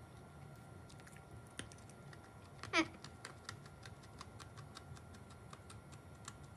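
Faint, scattered crunching clicks of a crunchy star-shaped dessert topping being chewed, with a short 'mm' hum about three seconds in.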